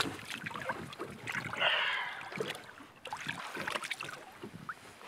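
Water splashing and sloshing at a boat's side as a yellowtail, held in the water by hand, is released and kicks away, with scattered small splashes and drips. The loudest splash comes just under two seconds in.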